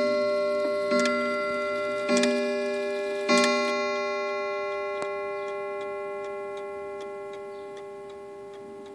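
Antique Lenzkirch mantel clock striking on its coiled wire gong: three strokes about a second apart, the last about three seconds in, then the gong rings on and slowly fades while the clock ticks.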